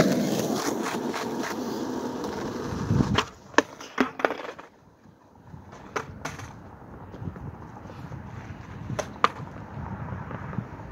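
Skateboard wheels rolling loudly over rough asphalt close past the microphone. About three seconds in comes a backside heelflip attempt: a quick cluster of sharp wooden clacks as the board is popped and clatters onto the pavement. A few lighter knocks follow later, near six and nine seconds.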